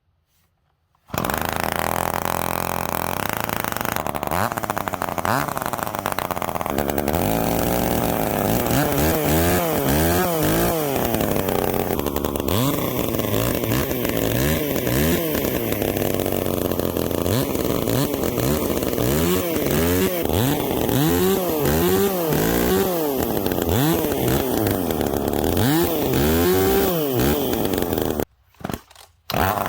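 Poulan P3416 34cc two-stroke chainsaw, fitted with a homemade exhaust pipe, running loud, with the throttle revved up and down again and again. It comes in suddenly about a second in and briefly cuts out near the end.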